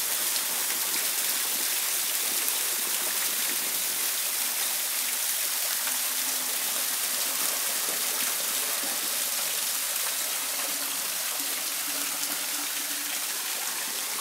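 Waterfall pouring down a rock face: a steady rush of falling water and spray.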